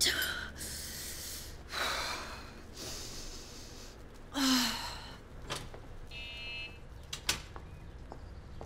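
A person's breaths: several short, sharp gasps a second or two apart, with a couple of faint clicks later on.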